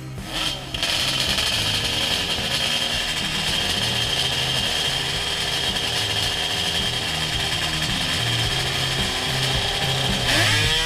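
Snowmobile two-stroke engine running at high revs with a steady high whine, with a backing music bass line underneath. Near the end the engine pitch rises sharply as it revs up.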